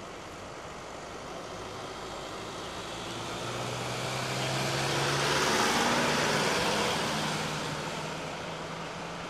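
Mercedes-Benz ambulance van driving past without its siren. Its engine and tyre noise swells to a peak a little past halfway through, then fades as it moves away.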